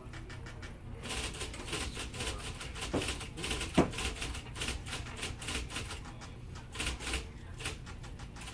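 Rapid typing: keys clicking several times a second in irregular runs, over a low steady hum, with one sharper knock about four seconds in.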